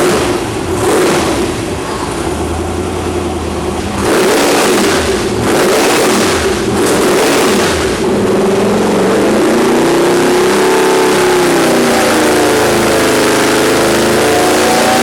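Twin-turbo Ford 428 Windsor V8 engine revved in several short, sharp blips, then held at sustained high revs from about eight seconds in, its pitch rising and falling.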